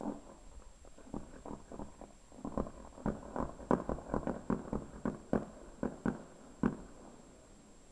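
Fireworks shells bursting in a rapid, irregular string of bangs that thickens in the middle and stops about two-thirds of the way in.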